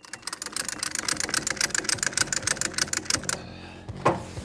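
A ratchet on a boat trailer clicking rapidly, about ten clicks a second, stopping after about three seconds; a short falling sound follows near the end.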